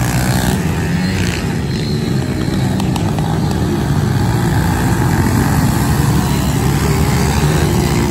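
Several small pit bike engines racing at once, their pitch rising and falling as the riders rev through a turn.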